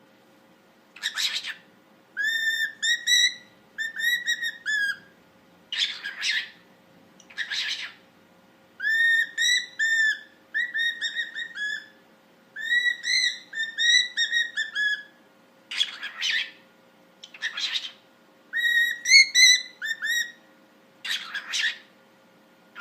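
Pet parrot whistling: runs of short, arched whistled notes, broken up by several brief harsh screeches.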